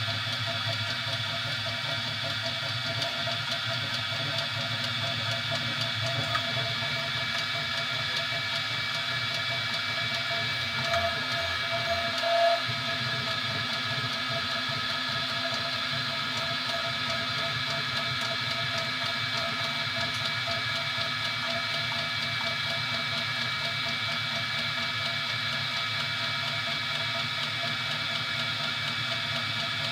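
3D printer running: a steady whir of cooling fans and motors with several held tones, briefly louder about eleven to twelve seconds in.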